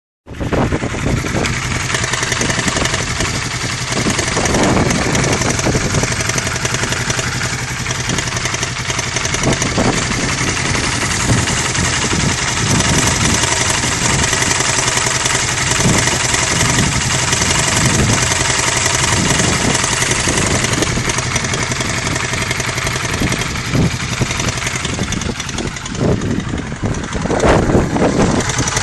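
Honda CBR 125R single-cylinder four-stroke engine idling with a rattle from the engine that the owner calls strange and cannot account for. The running wavers briefly near the end.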